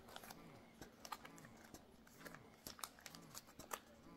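Quiet, scattered small clicks and taps of camera accessories and their packaging being handled.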